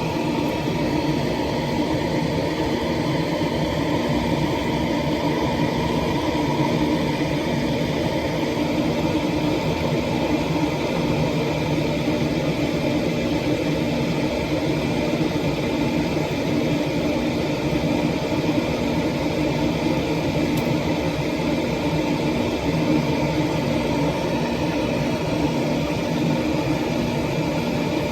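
A steady mechanical hum and whir over an even hiss, unchanging throughout, like a fan or small motor running.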